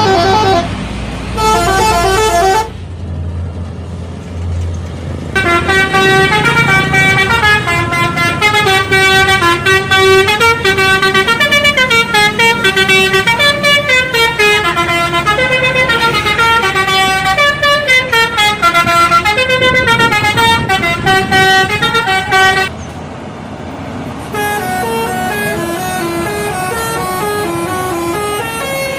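Indonesian bus 'telolet' horn, a set of air horns switched in sequence, playing quick melodic tunes note after note. The tune stops for a couple of seconds early on, leaving only a low rumble, and breaks off briefly again near the end.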